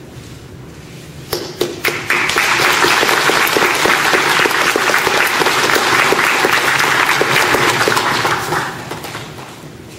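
Audience applauding: a few scattered claps about a second in, swelling into steady applause that dies away near the end.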